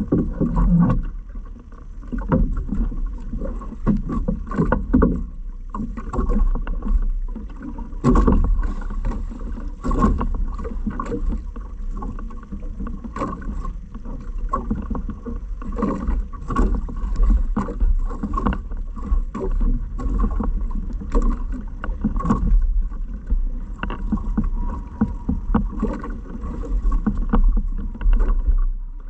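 Small boat on the water: irregular knocks and splashes against the hull over a steady low rumble.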